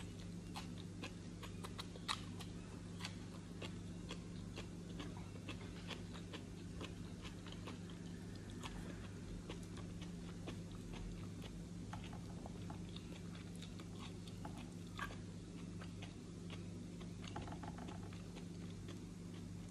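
A person chewing raw salad greens and vegetables with the mouth, many small crisp crunches and wet clicks, over a steady low hum in the room.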